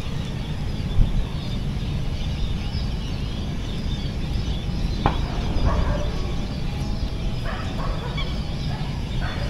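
Wind rumbling on the microphone, with a bird calling twice in the background, about halfway through and again a couple of seconds later.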